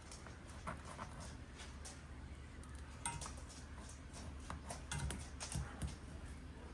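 Faint, scattered light clicks and small knocks of hand-handled hardware, with a sharper click about three seconds in and a short run of louder knocks around five seconds, over a low steady hum.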